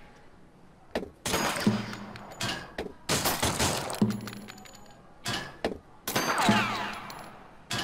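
Western-themed online slot game sound effects: reels spinning and landing in a run of sudden gunshot-like bangs and knocks, one every second or so, with a few falling whistling tones near the end.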